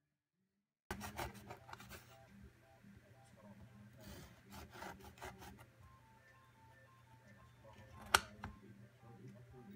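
A knife sawing back and forth through baked biscotti loaves on a glass cutting board: a rough rasping in short uneven strokes, starting about a second in, with one sharp click near the end.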